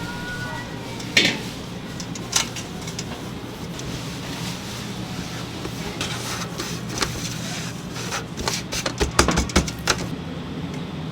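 Bakery kitchen work noise: a steady low machine hum with scattered knocks, and a flurry of clattering near the end.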